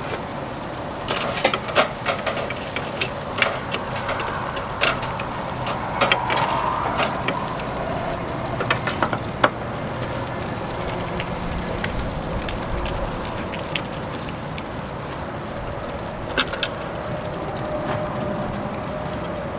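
Scattered metallic clicks and taps of a hand screwdriver working small screws out of a furnace's sheet-metal cover, most frequent in the first several seconds and then occasional, over steady background noise.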